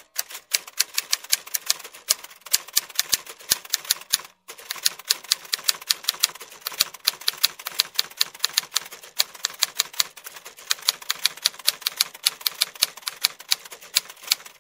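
Typewriter key clacks used as a sound effect: rapid, uneven strikes, several a second, with a short break about four seconds in.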